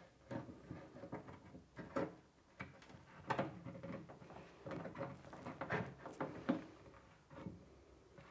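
Irregular light clicks, knocks and scrapes of a small metal clamp being fitted against a cello's rib and its screw turned, clamping a glued plywood reinforcement patch inside over a crack in the rib.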